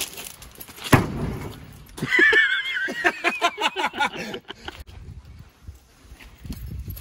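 A metal bar strikes the steel bed side of a 2002 2500HD pickup about a second in: a sharp bang that rings briefly. Then comes a horse whinny with a wavering, pulsing pitch, lasting about two seconds, among a few lighter knocks.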